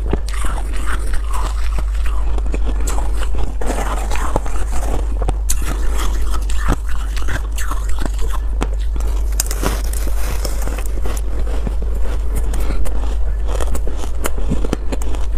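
Close-miked crunching and chewing of porous foam ice: many sharp, crackly crunches as frozen chunks are bitten and ground between the teeth, over a steady low hum.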